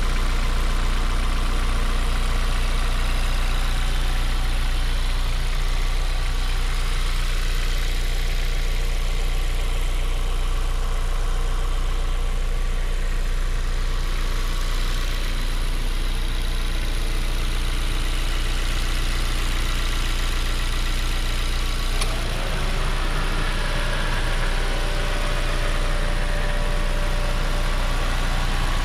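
Honda S2000's 2.2-litre inline-four idling steadily, heard from just above the open engine bay. A small click comes about three-quarters of the way through, after which the tone shifts slightly.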